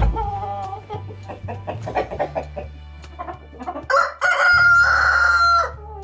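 Chickens clucking in a coop, then a rooster crows, loudly and for almost two seconds, in the second half.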